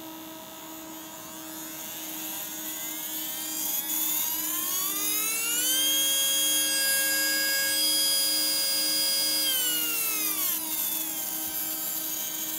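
Small brushed DC motor spinning on a variable bench power supply, its whine rising in pitch as the voltage is turned up to about 20 volts, holding steady for a few seconds, then falling as the voltage is turned back down. Under it runs the steady hum of the supply's cooling fans.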